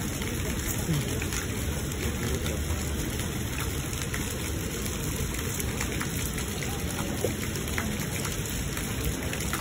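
Steady splashing and pattering of water from a fountain spout falling into a koi pond, with a few faint clicks.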